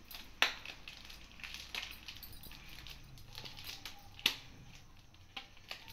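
Thin plastic pouch crinkling and rustling in the hands as a rubber band is wound round its twisted top, with a few sharp clicks, the loudest about half a second in and about four seconds in.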